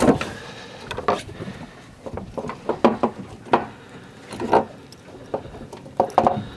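Scattered short knocks and clatters on a fishing boat, a handful spread irregularly over several seconds, as a hook is worked out of a landed catfish.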